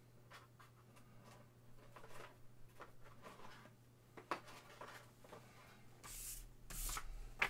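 Faint handling noise at a desk: scattered light rustles and taps over a low steady hum, with two short hissing rustles about six and seven seconds in.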